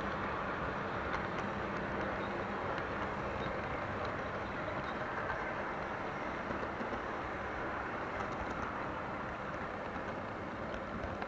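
OO/HO scale model train running along the layout's track, heard from a camera riding on it: a steady running whirr and rumble with a few faint clicks.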